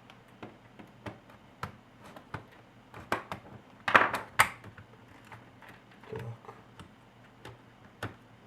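Plastic latches of a Lenovo IdeaPad S210T laptop's back cover clicking as the panel is pried loose, with scattered light clicks and two louder snaps about four seconds in.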